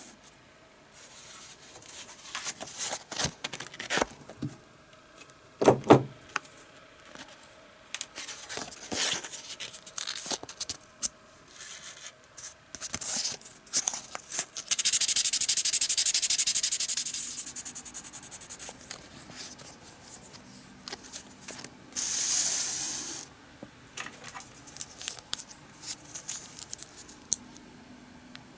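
Hand work on a small cypress-wood lure body: intermittent rubbing and scraping with light handling clicks. A loud steady hiss lasts about three seconds around the middle, and a shorter one follows later.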